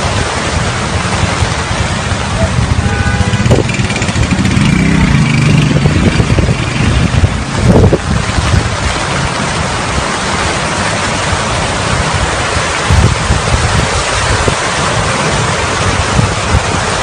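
Hurricane-force wind blowing hard and steadily, gusting and buffeting the microphone, with a couple of short knocks.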